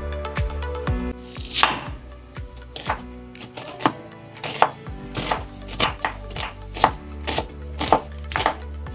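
Kitchen knife slicing a red onion on a wooden cutting board, about two cuts a second, each a sharp knock of the blade on the wood, over background music.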